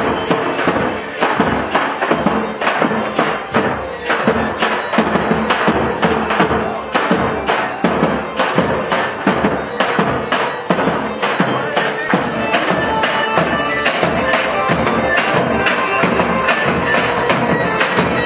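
Balkan folk dance music with a steady, fast drum beat, played for a kolo line dance. About two-thirds of the way through the drum strokes drop out and the playing continues more evenly.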